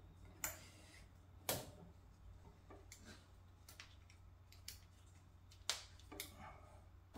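A few faint, scattered clicks and light knocks from the clips and wire kickstand legs on the back of a folding solar panel as they are adjusted, over a low steady hum.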